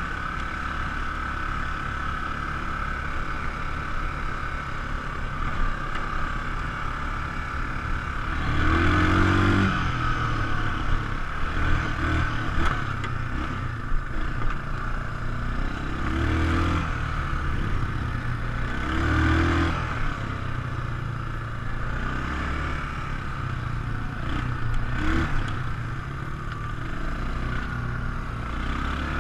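ATV engine running on a ride, revving up and easing off several times, with the bigger surges about a third and two-thirds of the way through.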